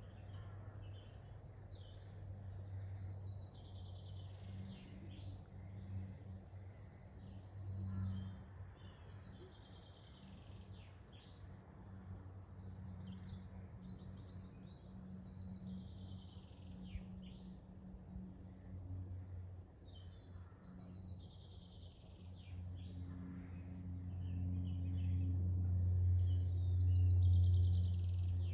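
Several woodland songbirds singing in short repeated phrases, over a steady low hum that grows louder in the last few seconds.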